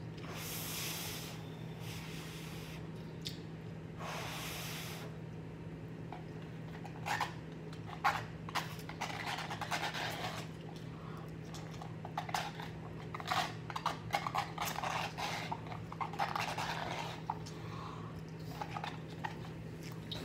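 Close-up eating sounds: a person slurping and chewing instant cup noodles. Two longer hissing slurps near the start are followed, from about seven seconds in, by a dense run of quick wet chewing and slurping noises over a steady low hum.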